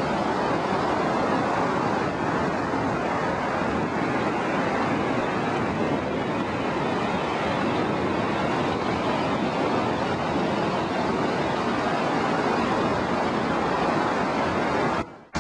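Steady wash of ocean surf, an even noise with no distinct breaks.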